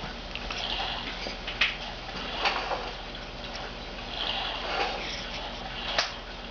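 Three short, sharp sneezes: one about a second and a half in, one a second later, and one near the end.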